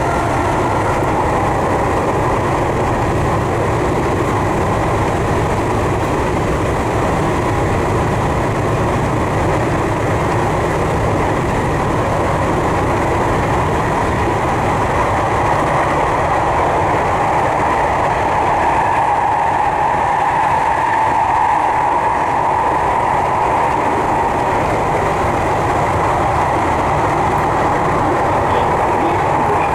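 Tokyu 3020-series electric train running between stations, a steady rumble of wheels on rail heard inside the car, growing a little louder in the second half.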